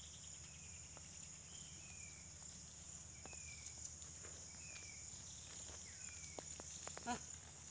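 Faint rural ambience dominated by a steady high insect drone. Short falling chirps come every second or so, with a few soft clicks and knocks.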